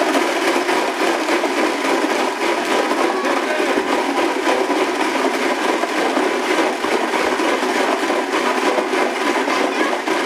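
Countertop blender running steadily, blending a thick brown mixture in its jar.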